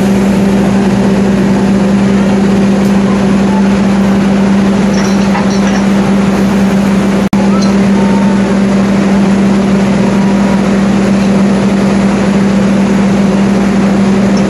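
CC 206 diesel-electric locomotive idling at close range: a loud, steady hum with a strong low tone that never changes.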